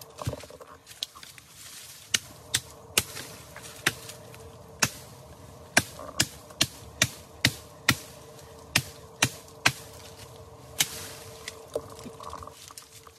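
Machete chopping a thin green sapling: a long run of sharp, separate strikes at an irregular pace, up to about two a second.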